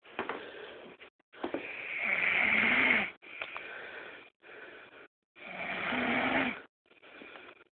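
Snoring: two loud snores that swell as they go, about a second and a half and five and a half seconds in, with quieter breaths between them.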